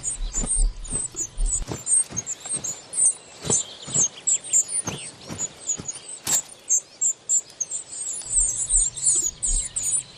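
Coal tits calling at a cliff nest: a steady run of very high, thin chirps, with scattered soft clicks, the sharpest about six seconds in.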